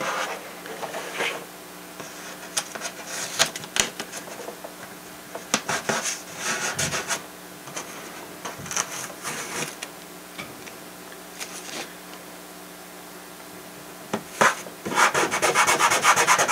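Masking tape being handled on the joint of a wood-sheeted foam model-airplane wing: fingers peeling and pressing it down in short scratchy rubbing bursts, with a longer, denser stretch near the end.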